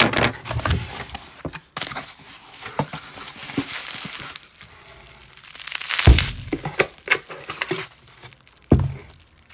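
Cardboard box flaps and paper being handled and torn open, with irregular rustling and crinkling. Two heavy thumps come about six and nine seconds in.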